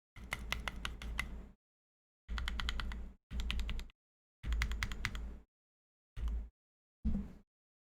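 Typing on a mechanical keyboard with lubed and filmed Tangerine linear switches, PBT keycaps and an aluminium plate: quick runs of keystrokes in six short bursts, with silent gaps between them.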